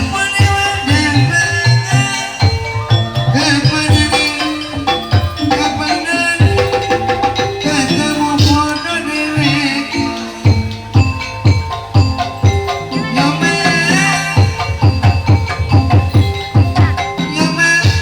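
Loud gamelan accompaniment for kuda lumping: hand drums (kendang) beating a dense rhythm under bronze metallophones playing a repeating melody.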